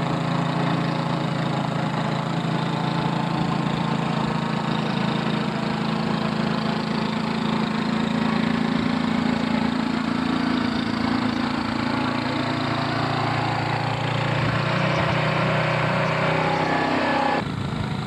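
Two-stage snowblower's small gasoline engine running steadily under load as its auger and impeller chew through a deep snow drift and throw the snow out of the chute. The steady engine sound breaks off shortly before the end.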